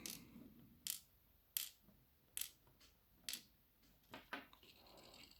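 Small metal lock pins from a gutted dimple lock clicking as they are handled and set down: about seven light, sharp clicks, roughly one a second.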